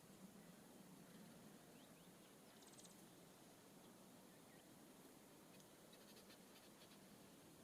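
Near silence, broken by a few faint, high calls from small songbirds: thin chips and a quick high trill about three seconds in, and a few more short high chips near the end.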